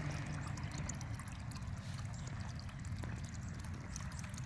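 Water from the DIY pond filter's outlet pouring and splashing steadily onto the pond surface, a constant trickling splash.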